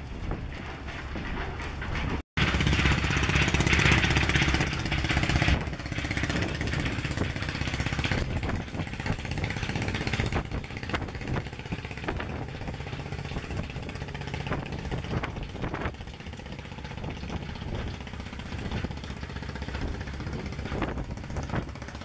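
A boat's diesel engine running steadily, with wind on the microphone. After a brief dropout about two seconds in, the engine is at its loudest for about three seconds, then settles to a steady level.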